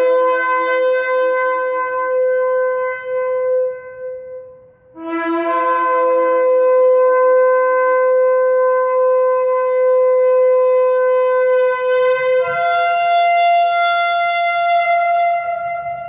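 Shofar blown in two long blasts. The first, already sounding, holds one steady note until about four seconds in. After a short breath the second begins with a brief low note, holds steady, jumps to a higher note about twelve seconds in, and fades near the end.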